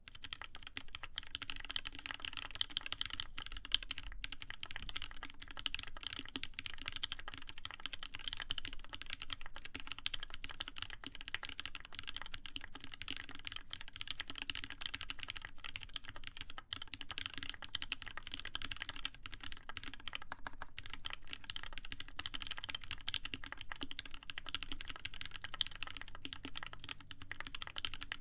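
Continuous fast typing on a mechanical keyboard with lubed Cherry MX Black linear switches in a copper plate, a dense stream of key clacks with an occasional louder spacebar hit. The typing starts at once.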